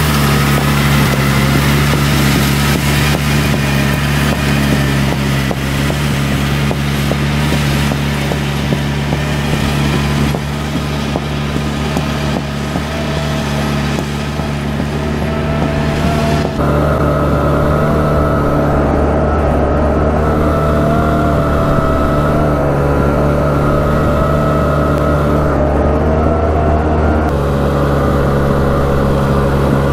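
Polaris Big Boss 6x6 ATV engine running at a steady speed, its note changing suddenly about halfway through and again near the end.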